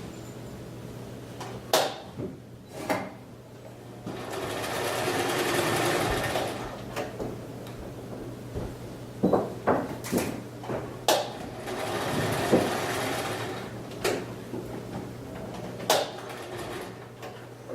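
A sewing machine runs in two bursts of a few seconds each. Sharp clicks and knocks come in between, as it is handled.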